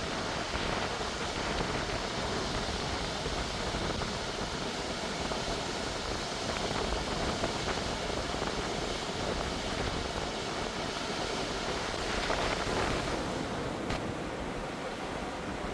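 Ocean surf washing steadily against the shore, a continuous rushing noise that swells slightly near the end.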